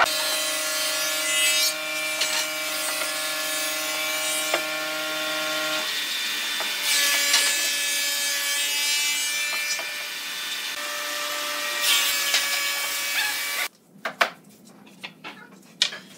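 An electric woodworking power tool running steadily: a motor hum with a hiss above it. Its tone shifts about six seconds in, and it stops abruptly near the end.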